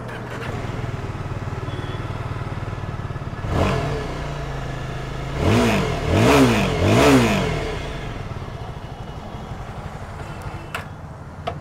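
Yezdi Scrambler's 334 cc single-cylinder engine idling through its exhaust. It is blipped once about three and a half seconds in, then revved three times in quick succession before falling back to a steady idle.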